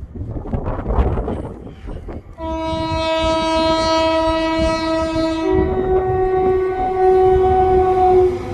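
Train horn sounding one long two-tone blast: a steady low note for about three seconds, then stepping up to a slightly higher note for about three more before cutting off. Rumble and clatter of the train on the track run underneath, and they are all that is heard for the first two seconds.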